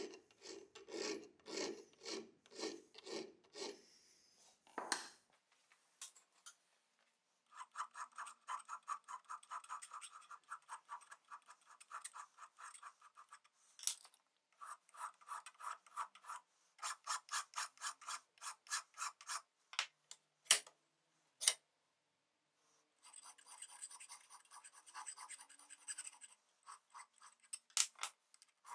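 Hand file rasping back and forth on a brass blowtorch fitting held in a vise, in regular strokes. A run of quicker, lighter strokes follows a short pause, broken by two sharp clicks.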